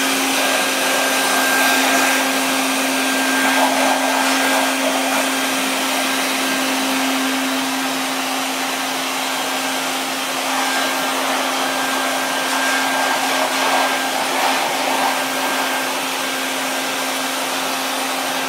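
Bucket Head wet/dry vac powerhead on a five-gallon bucket running continuously: a steady motor hum with a faint high whistle over the rush of air.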